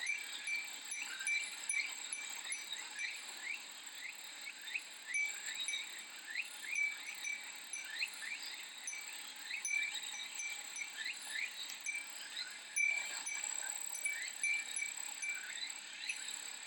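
Cicadas calling in a steady high drone with many short repeated chirps, and a Japanese glass wind bell (furin) tinkling now and then.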